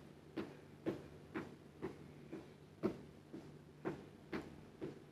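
Footsteps of a person marching on the spot in sneakers on a rug, an even beat of about two soft thuds a second, over a faint steady low hum.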